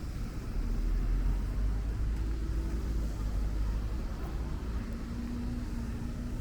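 Road traffic: a steady low rumble of motor vehicles, with a faint engine hum that drifts slightly in pitch.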